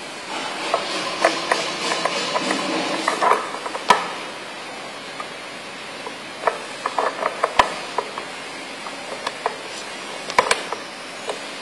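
Date stamp being handled and worked: runs of small mechanical clicks and knocks, with a louder knock about four seconds in and further clusters of clicks after a short pause and again near the end.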